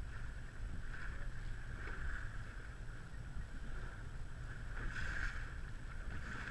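A boat under way at sea: a steady low rumble with the hiss of water rushing past, swelling every second or two.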